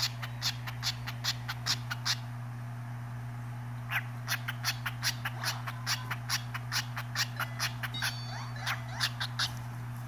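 A cockatiel giving quick, short chirps, about two to three a second, in two runs with a pause of about two seconds between them, over a steady low hum.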